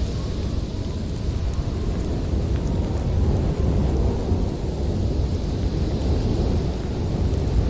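Snowstorm wind blowing steadily: a deep, constant rumble with a lighter hiss above it.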